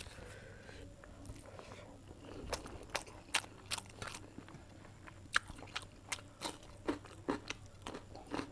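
Close-up chewing and biting of food, in an eating show. It starts quietly, and from a couple of seconds in there is an irregular run of sharp crunches and mouth clicks.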